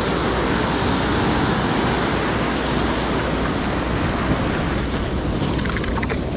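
Surf breaking and washing over the beach as a steady rush, with wind on the microphone; a few light clicks near the end.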